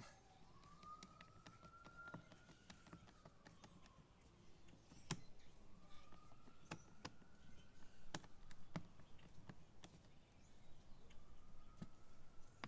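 Faint, irregular clicks of a screwdriver turning screws into the plastic side cover of a Champion 2800 inverter generator, most frequent around the middle.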